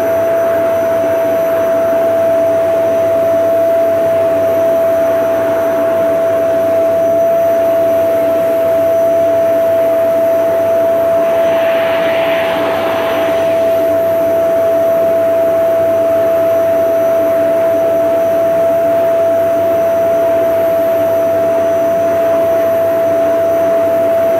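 Vacuum cleaner running steadily, a constant whine over the rush of air, with a brief hiss about halfway through.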